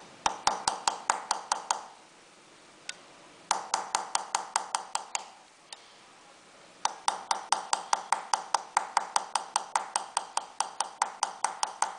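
Small hammer tapping a steel engraving chisel along a line in a silver sheet, in quick even runs of about five ringing taps a second. There are three runs with short pauses between them and a single tap in each pause.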